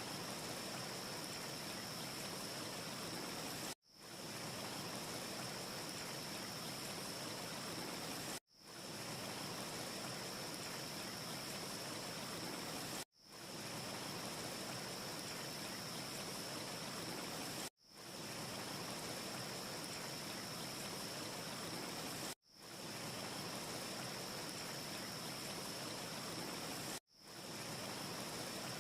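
A steady, even hiss of looped ambience noise with a thin high steady whine on top and no distinct crackles. It cuts out abruptly about every four and a half seconds, six times in all, and fades straight back in each time: the seams of a short repeating loop.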